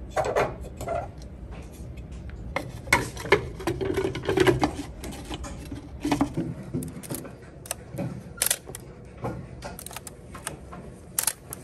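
Plastic film developing tank being put together: the lid and parts clatter and click as they are handled and twisted into place on a table. Near the end, mechanical clicks from a Minolta film SLR being handled.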